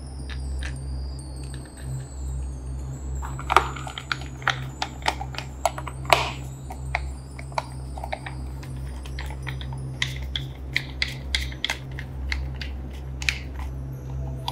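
Irregular sharp clicks and taps of small hard parts being handled, over a steady low hum.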